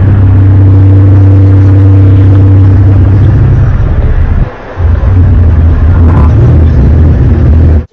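Loud, low droning hum on a steady pitch with higher overtones, dropping away briefly about four and a half seconds in and cutting off suddenly at the end: the kind of unexplained sky hum reported as 'strange sounds from the sky'.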